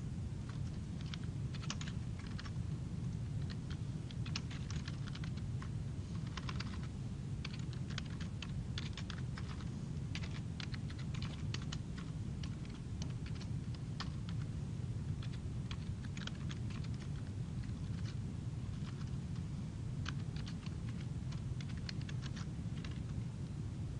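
Computer keyboard typing in irregular runs of keystrokes with short pauses between them, over a steady low hum.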